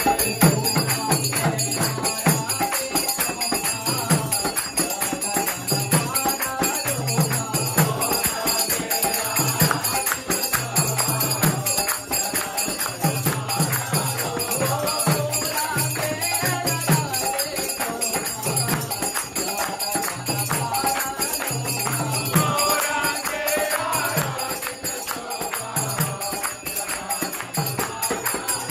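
Kirtan: a group of voices singing devotional chant over a mridanga drum beating a steady repeating rhythm, with hand clapping and the bright metallic ringing of small hand cymbals.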